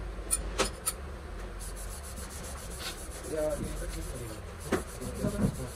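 Steel gear parts of an excavator swing motor's reduction gearbox being handled and fitted by hand: three quick metal clinks in the first second, another sharp clink near the end, with rubbing and scraping of metal parts between.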